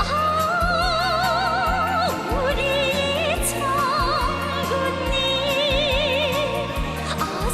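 North Korean pop music: a melody sung or played with heavy vibrato over a steady, rhythmic bass beat.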